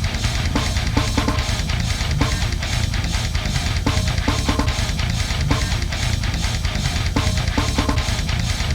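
Outro music: heavy rock with distorted electric guitar and a steady drum beat.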